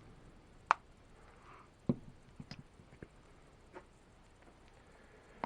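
A few scattered light clicks and taps of small plastic items being handled while two-part epoxy is mixed with a plastic knife. The sharpest click comes under a second in and a duller knock near two seconds, followed by fainter ticks.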